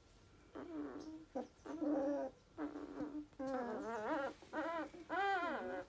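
Two-week-old Goldendoodle puppies whimpering and squeaking: a string of short, high, wavering whines that come faster and run together in the second half.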